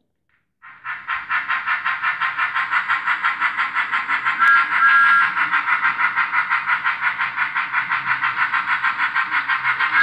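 Sound-fitted Bachmann Thomas the Tank Engine model locomotive making steam chuffing sounds. The chuff starts about half a second in and quickens to a fast steady beat. Two short whistle toots sound about four and a half seconds in.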